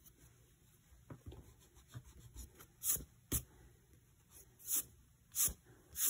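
Pencil scratching on sketchbook paper in short strokes, then several brief brisk rubs and swishes across the paper as a hand brushes over the page.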